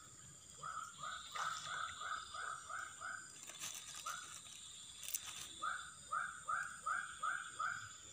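An animal calling: two runs of short, identical notes, about three a second, with a single note between the runs.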